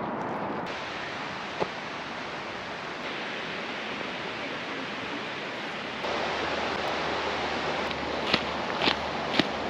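Steady rushing of falling water, with a few footsteps near the end.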